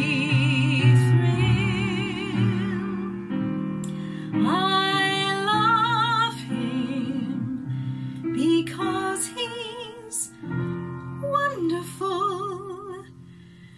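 A woman singing a slow show-tune ballad in a trained, operatic-leaning voice, with wide vibrato on long held notes, over a soft instrumental accompaniment. The phrase trails off quietly near the end.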